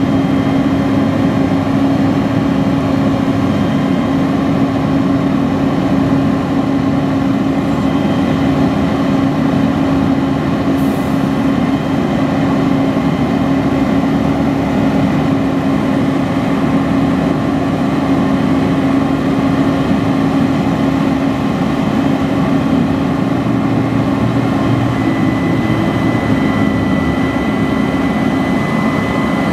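Diesel engine of a 2007 Peterbilt 340 crane truck running steadily with a strong even hum while the crane boom is being raised. A thin higher whine joins near the end.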